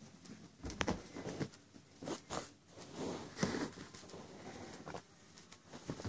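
Bursts of scratchy rustling and a few light thuds: a kitten scrambling onto a woven fabric sofa with its toy, and a hand snatching and throwing the toy.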